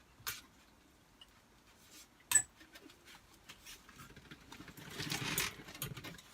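A few light clicks and taps with one sharper click about two seconds in, then a soft rustle around five seconds in: small objects being handled.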